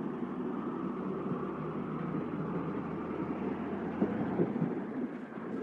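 A vehicle engine running steadily, with a couple of faint knocks about four seconds in.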